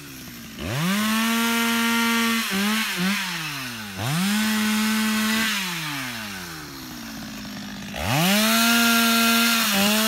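Two-stroke chainsaw revved up to full throttle three times, about four seconds apart, each time held for a second or two before falling back toward idle, with two quick throttle blips in between. It is cutting up tree branches.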